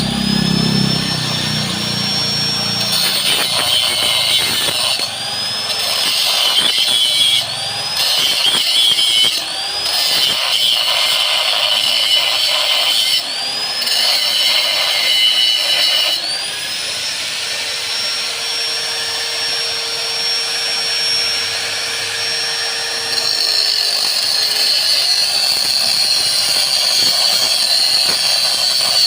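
Chopper machine running steadily with a high whine. In the first half its pitch sags and climbs back several times; after that it holds steady.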